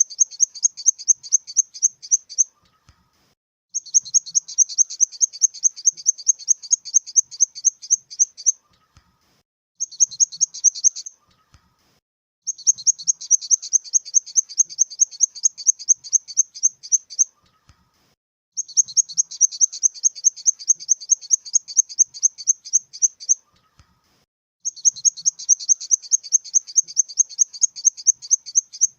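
Grasshopper stridulation sound effect: rapid, high, buzzy chirps, several a second, in six trains of one to five seconds each, separated by short silent gaps.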